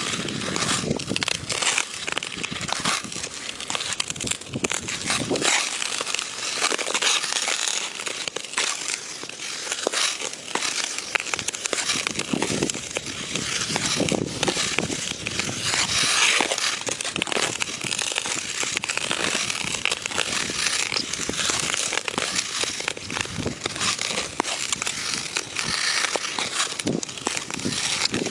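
Hockey skate blades scraping and gliding across outdoor rink ice in continuous strides: a steady hiss made of many short scrapes, without pause.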